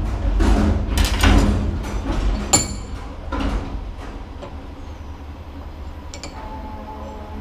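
Metal parts being handled and scraped for the first few seconds, with one sharp, ringing metal clink about two and a half seconds in. After that it is quieter.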